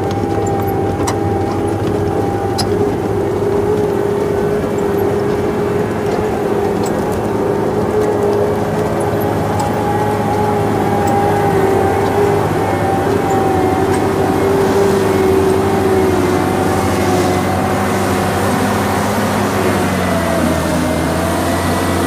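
Tesmec 1075 chain trencher's diesel engine running steadily under load, with a held whine over a heavy rumble; the pitch sags briefly near the end.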